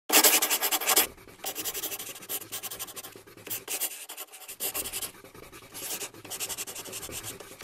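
Chalk scratching on a chalkboard in quick writing strokes, the way letters are scrawled. There is a loud burst in the first second, then a run of shorter, quieter strokes.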